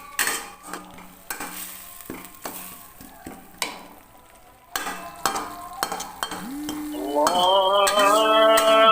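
Blended spice paste frying in a pan while being stirred, with a light sizzle and repeated sharp clinks and scrapes of the utensil against the pan. About six and a half seconds in, music with sustained notes comes in.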